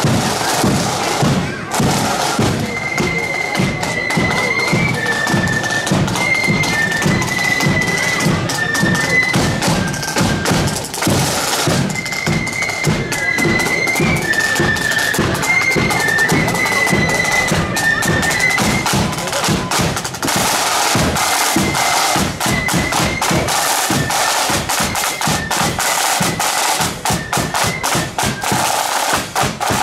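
Marching flute band playing: flutes carry a tune over side drums and a bass drum. About twenty seconds in the flute tune stops, and the drums play on alone with rapid side-drum rolls.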